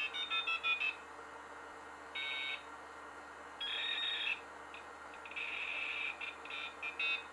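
High-pitched electronic beeping notes in quick, stepped runs, coming in several separate bursts: a comic sound effect laid over the footage.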